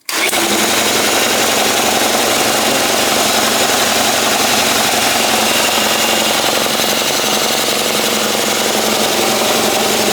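Old oil-lubricated piston air compressor starting suddenly and then running steadily and loudly with a fast, even pulsing.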